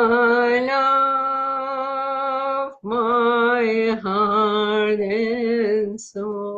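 A woman singing alone, unaccompanied, in long held notes with vibrato. There are three phrases with short breaks between them, and the third begins near the end.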